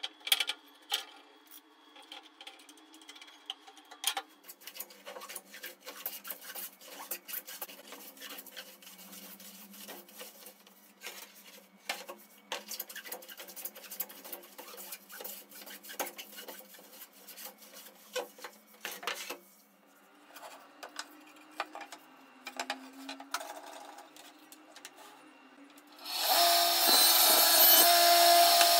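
A hand plane shaving a pine board in many quick, rasping strokes, after a few knocks as the board is clamped. Near the end a table saw crosscuts the pine board with a loud, steady whine, the loudest sound.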